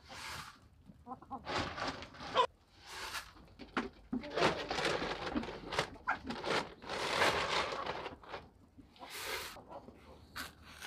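Domestic hens clucking, mixed with irregular bursts of rustling and scuffing.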